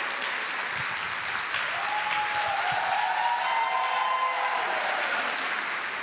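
Church congregation applauding, with one long held cheer rising over the clapping about two seconds in.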